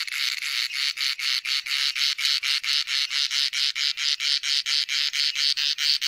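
Male cicada singing: a loud, rhythmic buzz that pulses about six times a second, made by the clicking of its tymbal membranes.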